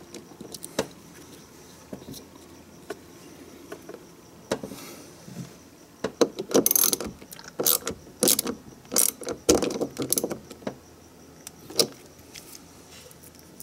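Irregular small metallic clicks and rattles of wire terminals and connectors being handled on the ignition coil's terminals, busiest in the middle of the stretch.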